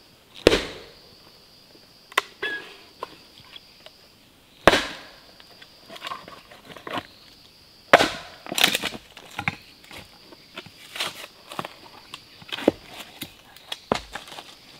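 Hatchet chopping and splitting a short upright log: three heavy strikes a few seconds apart, then a quicker run of lighter chops and cracks as slabs split off. A steady high-pitched insect drone lies underneath.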